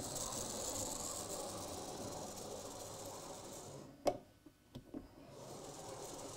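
Model locomotive chassis, an older Hornby Class 43 HST power car refitted with a new motor in place of its Ringfield motor, running along OO gauge track at a scale speed of about 70 mph with a steady whirring hiss. It fades away about four seconds in, there is a sharp click and a few small clicks, and then the running sound builds again as it comes back.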